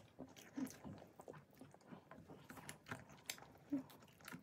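A person eating with faint chewing and biting: small scattered crunches and wet mouth clicks.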